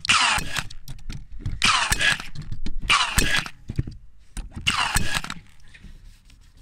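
AEG 16-gauge cordless brad nailer firing four nails into thick timber trim, each a sharp shot with a brief whir of the tool's motor, at its maximum depth and air-pressure settings.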